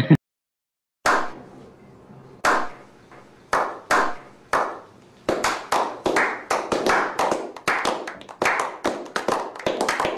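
A slow clap by several men: single hand claps about a second apart, starting about a second in, that speed up into quicker, overlapping clapping by several pairs of hands.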